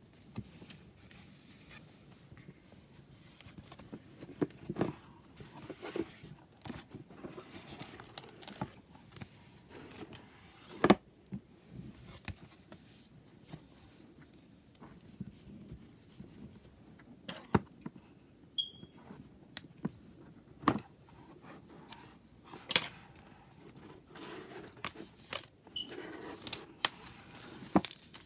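Hands unpacking a boxed tarot deck: soft rustling and crinkling of packaging with scattered light taps and clicks, and one sharper knock about eleven seconds in.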